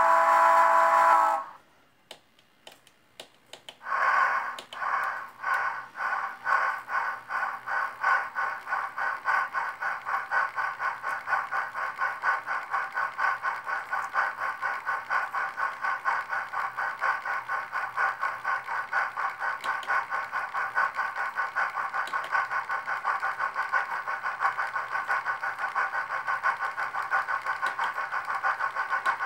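Sound decoder of a Rivarossi H0 Chapelon 4-6-2 model steam locomotive: a whistle cuts off about a second and a half in, then after a short pause steam exhaust chuffs start slowly and quicken into a steady fast beat as the model runs up to speed on the rollers.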